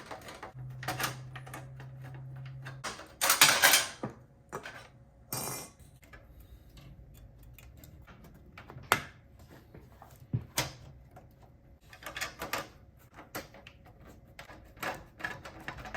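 A graphics card being fitted into a desktop PC case: scattered metallic clicks, clinks and rattles of the card and case parts being handled, with a couple of short scraping rushes.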